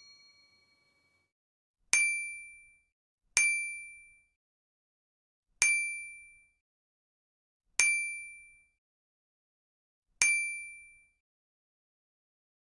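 Five short, bright bell-like dings, roughly two seconds apart, each dying away within about half a second: a chime sound effect.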